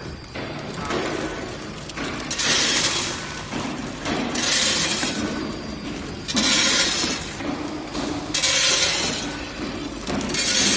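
Automatic vertical packing machine running: hard dry beans rattle and pour through its stainless filler and down the chute in a loud rush about every two seconds, one dose per bag, over the machine's steady running noise.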